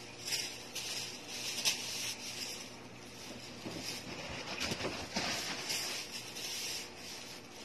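Rustling and light handling noise as plush toys are picked up and moved about, in several short spells with a few soft knocks.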